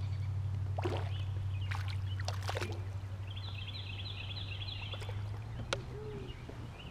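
A hooked smallmouth bass splashing at the surface beside a kayak as it is played in, with several sharp splashes in the first few seconds. Under it runs a steady low rumble that fades near the end, and a rhythmic high chirping in the middle.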